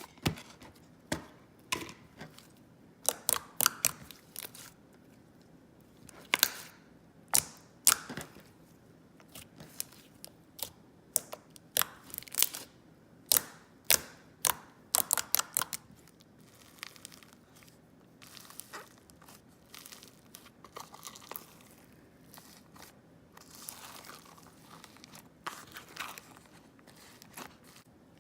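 Slime being squished and poked by hand, giving a run of sharp clicking pops, thickest in the first half, then softer crackling.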